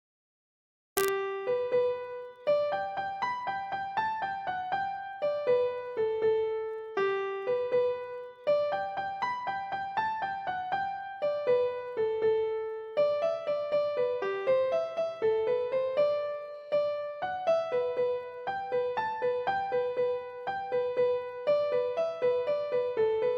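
Background piano music: a light melody of single struck notes that starts about a second in, after a brief silence and a click.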